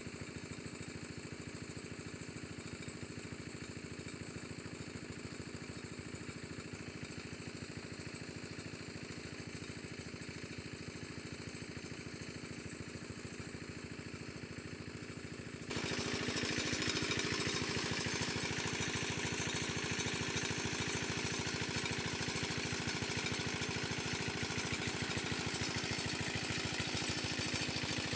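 A small engine running steadily with an even pulsing drone; it becomes suddenly louder and brighter a little over halfway through.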